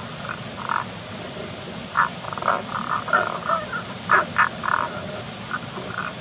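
Tago's brown frogs calling from rock crevices: an irregular series of short, low, snore-like croaking notes, thickest from about two seconds in to about five, over a steady hiss.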